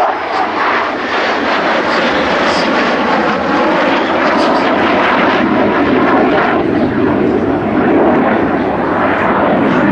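Loud, steady jet noise from an AMX light attack jet's single Rolls-Royce Spey turbofan as the jet flies a display pass and climbs away, swelling slightly near the end.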